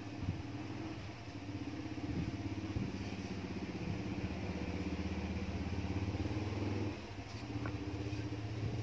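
A motor running with a steady low hum, louder from about two seconds in until about seven seconds in.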